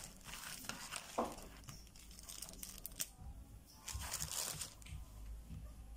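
Plastic courier bag and paper packaging crinkling and rustling in irregular bursts as they are handled, with a sharp click about three seconds in.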